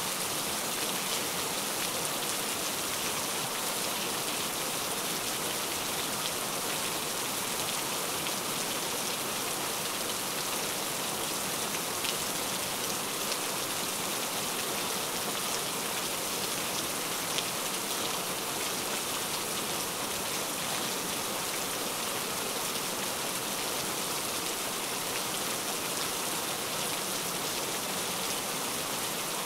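Heavy rain falling steadily, a dense even hiss of drops with a few sharper individual drop ticks.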